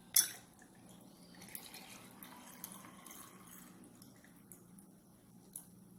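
A sharp click just after the start, then faint liquid pouring and dripping with a few small ticks.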